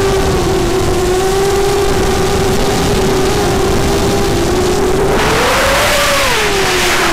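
Electric motor and propeller of an FPV model aircraft whining at a steady pitch, picked up by the onboard camera. About five seconds in the whine rises in pitch with a growing rush of wind, then drops back near the end.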